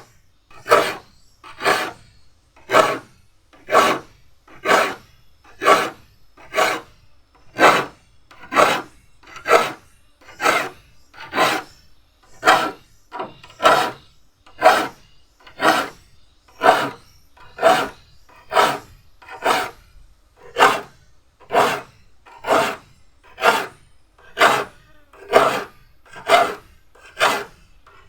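Metal file being pushed across the teeth of a crosscut hand saw, sharpening it: short rasping strokes in a steady rhythm of about one a second.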